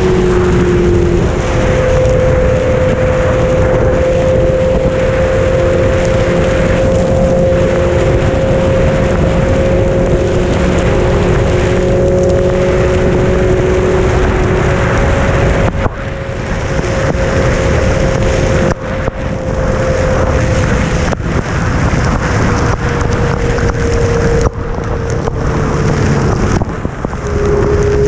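Sport motorcycle engine running at a steady cruising speed under heavy wind rush on the helmet-mounted microphone. The engine note holds steady, then sinks slowly over the last several seconds before shifting near the end. The loudness drops out briefly a few times.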